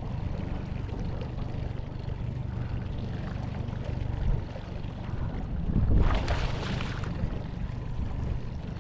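A boat's motor running steadily under wind noise, with a brief louder rush of noise about six seconds in.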